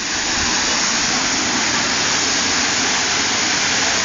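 A tall water jet gushing up from a toilet trailer's water supply and raining back down onto the street: a steady, loud rush of falling spray.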